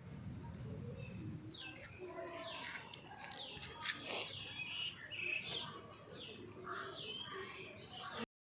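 Birds calling: a series of short chirps, each sliding downward in pitch, repeated about once or twice a second.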